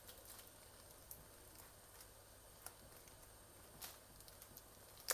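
Near silence: quiet room tone with a few faint, sharp clicks.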